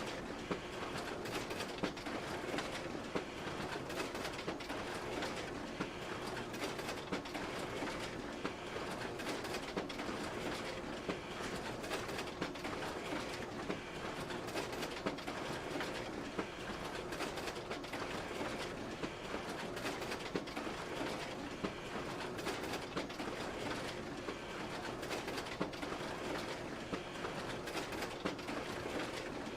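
Photocopier running continuously through a copy job: a steady mechanical whirr with a hum, broken by repeated short clacks as sheets feed through.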